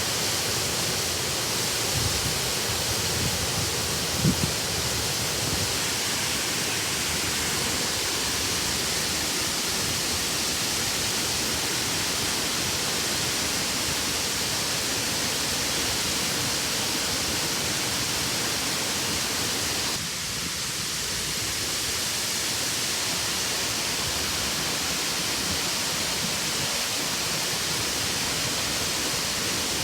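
Waterfall: a steady, even rush of falling water, with a brief knock about four seconds in.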